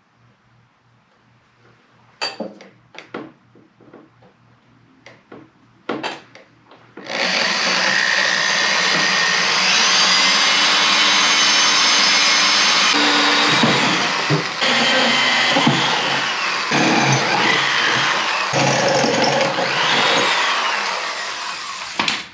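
Corded electric drill boring holes through the snowblower's sheet-steel frame. After a few light clicks, it runs loud and continuous for about fifteen seconds, its pitch shifting in the second half as the bit cuts through the steel.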